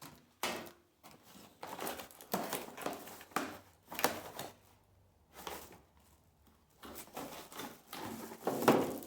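Cardboard box and packing being handled during unboxing: irregular rustles, scrapes and knocks, with a pause of about two seconds in the middle and the loudest knock near the end.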